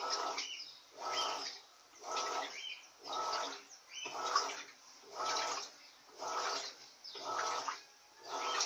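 Electrolux Silent Control 16 kg (LAC16) washing machine agitating a duvet load. The water and bedding slosh in a steady rhythm, about one swish per second as the wash action reverses.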